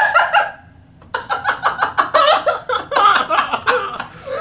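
People laughing after a joke's punchline: after a brief lull, a quick run of short ha-ha pulses starts about a second in and keeps going.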